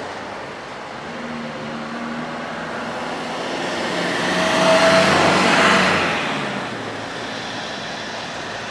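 A motor vehicle passing by: its road noise swells to a peak about halfway through and fades away over a low steady engine hum.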